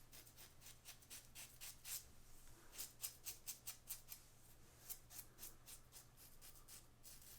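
Faint short scraping strokes of a RazoRock Lupo 72 double-edge safety razor cutting stubble, in uneven runs of about four strokes a second.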